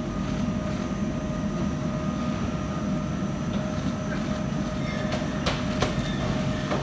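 Steady low rumble of baggage-hall machinery with a faint steady hum on top, and two sharp clicks about five and a half seconds in.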